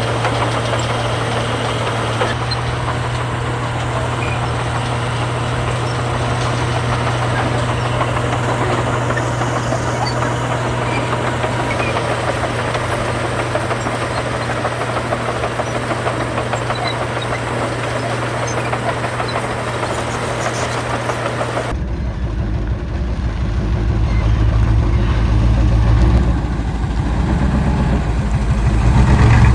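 Diesel engines of heavy earthmoving machinery running steadily. About 22 seconds in, the sound switches abruptly to a deeper, louder engine sound that builds toward the end.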